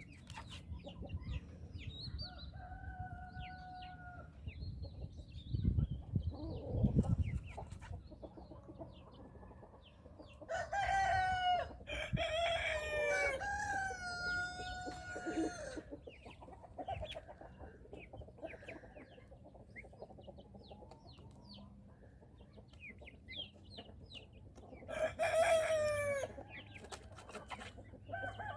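Rooster crowing twice, long drawn-out calls about ten seconds in and again near the end, with short high peeps of young poults scattered between. A loud low rumble sounds about six seconds in.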